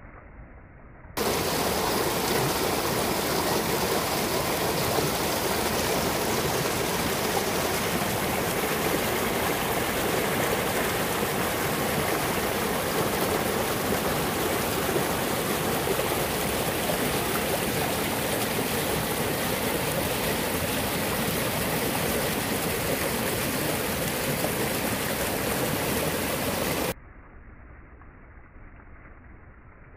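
Mountain stream rushing over rocks: a loud, steady rush of water that starts abruptly about a second in and cuts off abruptly near the end.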